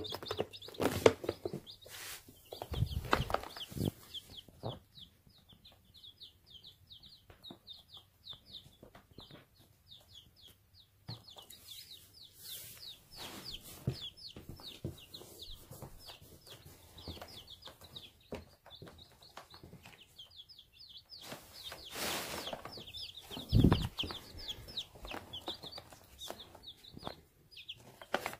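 Day-old chicks peeping without a break: many short, high, falling cheeps in quick succession. A few louder thumps and rustles come through, the loudest near the start and about three quarters of the way in.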